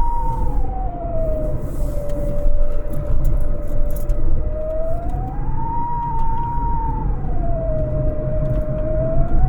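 AM radio receiver tuned to 960 kHz picking up a strange tone that slowly slides down, holds low, rises back, and holds high, about one cycle every five to six seconds. Underneath it is heavy static with crackles.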